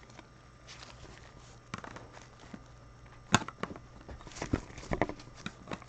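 A few light, sharp clicks and taps from handling objects on a desk: a single crisp click a little past halfway, then a quick cluster of softer ticks.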